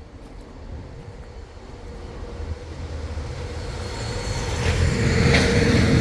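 A passing road vehicle, its low rumble and tyre hiss growing steadily louder as it approaches and peaking near the end.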